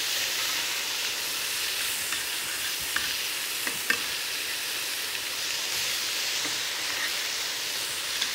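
Marinade-glazed chicken sizzling on a hot ridged grill pan, a steady hiss. A few light clicks of metal tongs against the ceramic dish and grill fall near the middle.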